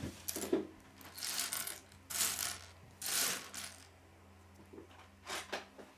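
Small plastic Lego pieces slid and shuffled by hand across a wooden tabletop, in several short, irregular bursts of scraping and clicking.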